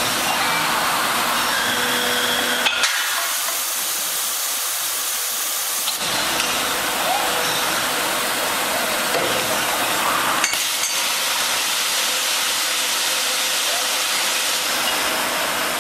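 An automated aluminium die-casting cell built around a WELLISH C/200 D cold-chamber die casting machine, running with a steady hiss of machinery. There are sharp clicks about three seconds in, where the low hum drops away for about three seconds, and another click near ten seconds.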